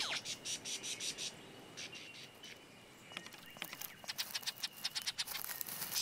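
Superb lyrebird giving its display song: runs of sharp, rapid clicks, dropping away about a second and a half in, then starting again, with a faint thin steady high whistle behind.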